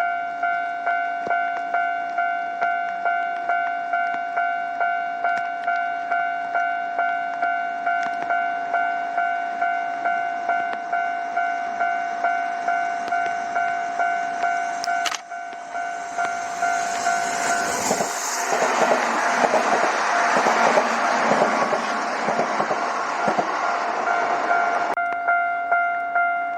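Japanese railway level-crossing bell ringing steadily, about one and a half strikes a second. From about 16 seconds in, a Kintetsu electric train passes over the crossing, its rushing wheel and running noise covering the bell for several seconds before cutting off suddenly, and the bell rings on.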